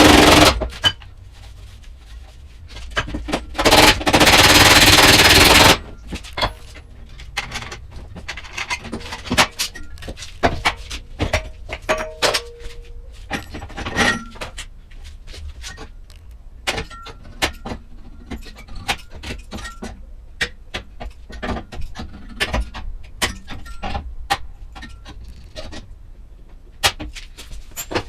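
Bodywork on a car's panels: many sharp, irregular taps and knocks on metal, broken by two short bursts of a loud power tool about three and a half and four and a half seconds in.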